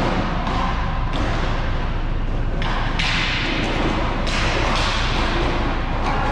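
Roller hockey rink noise: a steady low hum under the clatter of play, with thuds of sticks, puck and boards, the sharpest knocks coming about three and about four and a half seconds in.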